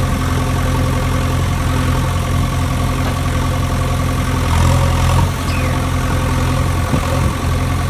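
Engine idling steadily, a low, even hum.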